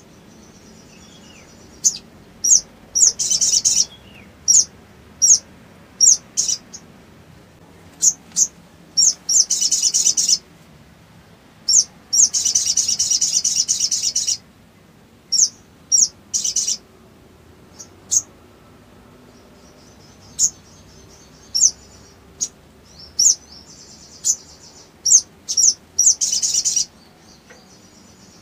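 Caged male olive-backed sunbird (sogon) calling: a run of sharp, high single chirps broken by several rapid chattering trills of one to two seconds each, the longest about twelve seconds in.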